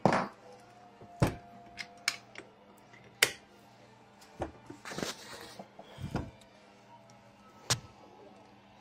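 Irregular metal clicks and knocks from hand tools and a gear puller working a stuck wheelchair wheel off its motor shaft: a dozen or so sharp, separate strokes at uneven intervals, several of them loud.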